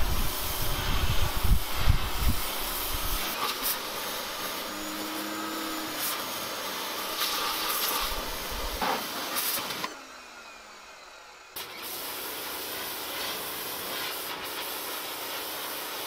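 Portland 1750 PSI electric pressure washer spraying: a steady high hiss of the water jet. The hiss drops away about ten seconds in and comes back a second and a half later.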